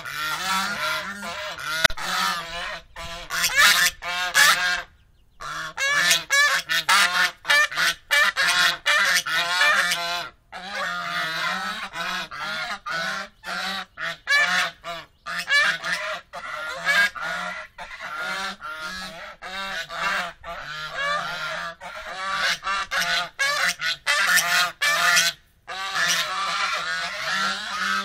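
A flock of domestic Chinese geese honking loudly and almost without pause, many short calls overlapping, broken by a few brief gaps.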